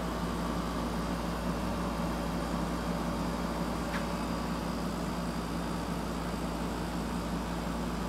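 Mid-1980s Emerson Quiet Kool 7000 BTU window air conditioner running on cooling, working as it should: its rotary compressor and fan give a steady hum with rushing air. A faint tick comes about four seconds in.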